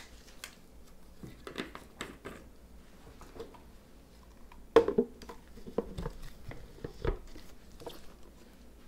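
Scattered small clicks, taps and knocks of kitchen utensils and containers being handled, with a sharper knock about five seconds in and a dull thump about two seconds later.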